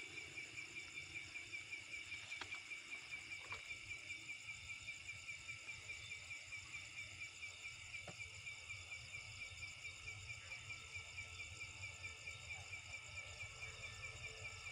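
Night insects chirping in a steady, even, rapid pulse, with a faint low rumble underneath.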